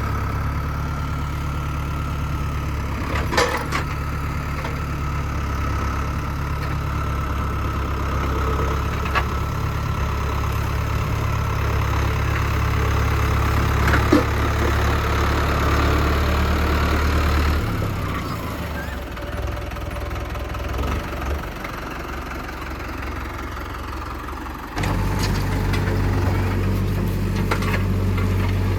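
Mahindra tractor's diesel engine running steadily under the backhoe, with a few sharp knocks. About 18 s in the engine sound drops lower, and it comes back up suddenly about 25 s in.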